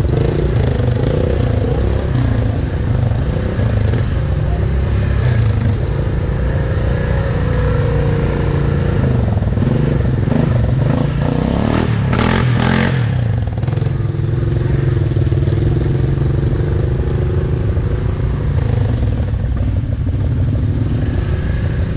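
ATV engine running steadily while riding, its note rising and falling a little, with a short noisy clattering rush just past the middle.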